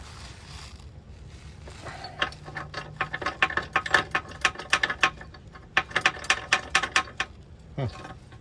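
Hitch bolt and spacer plate rattling and clicking against the inside of a van's steel frame rail as they are worked along with a fish wire toward the drilled hole: rapid irregular metallic clicks that start about two seconds in and stop near the end, with a short break in the middle.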